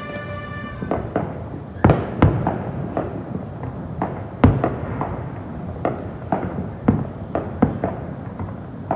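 Fireworks going off: an irregular series of sharp bangs and thuds, the loudest about four and a half seconds in.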